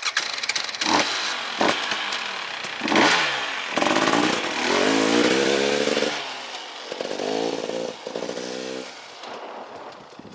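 KTM 300 XC-W TPI fuel-injected two-stroke single-cylinder engine revving: three quick throttle blips in the first three seconds, then held at high revs for a couple of seconds, backed off, held again, and fading near the end.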